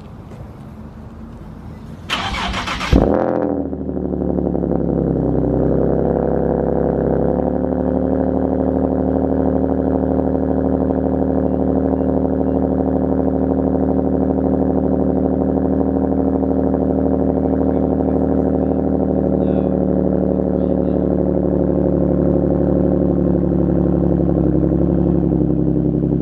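Nissan 370Z's 3.7-litre V6 cold-starting through a freshly installed Motordyne Shockwave exhaust. The starter cranks for about a second, the engine catches with a brief flare about three seconds in, and it then settles into a steady cold idle.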